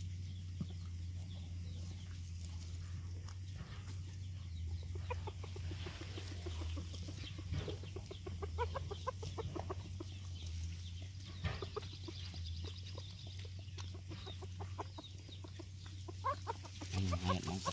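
A dog eating rice from a bowl, with many small wet chewing and lapping clicks. Faint short pitched calls and a steady low hum run underneath.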